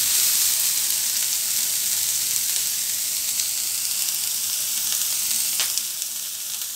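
Sliced onions sizzling in hot oil in a nonstick frying pan on high flame, being sautéed toward caramelising, stirred with a wooden spatula at first. A steady high hiss that eases slightly toward the end.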